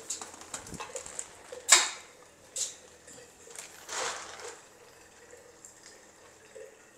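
Aquarium water splashing and dripping as a fish is caught from the tank. One sharp, loud splash comes just under two seconds in, with smaller splashes over the next two seconds, and then it goes quiet.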